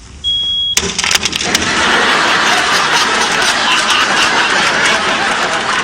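A smoke detector gives one short high beep, then a quick run of sharp knocks and clatter as something is done to it, followed by loud studio audience laughter and applause.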